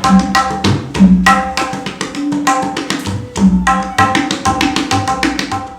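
Tabla being played: a quick run of sharp strokes on the treble drum over ringing, pitch-bending strokes on the bass drum. The playing starts abruptly and stops just before the end.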